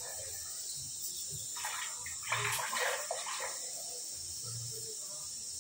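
Buttermilk sloshing and splashing in a steel pot for about two seconds, starting near two seconds in, as fresh butter is scooped out of the churned buttermilk by hand.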